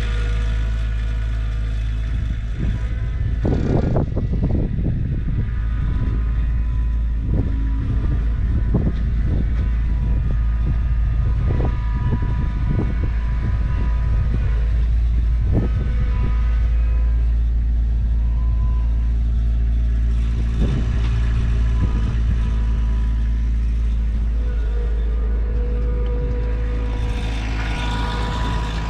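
A car driving, heard from inside the cabin: a steady, deep engine and road rumble with occasional short knocks and rattles.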